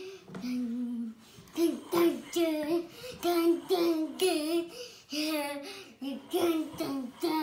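A young boy singing a wordless tune in short, bobbing phrases.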